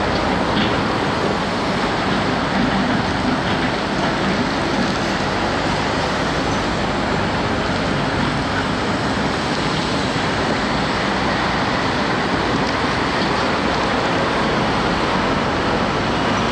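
Loaded Scania tipper truck's diesel engine running at low speed as it rolls over gravel, heard inside a steady hiss-like noise that stays level throughout.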